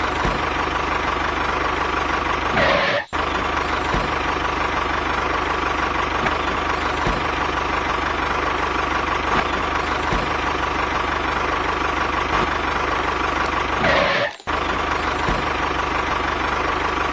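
Heavy engine running steadily, as a looped vehicle sound effect. It drops out sharply twice, about three seconds in and again about fourteen seconds in, each time just after a short falling sweep.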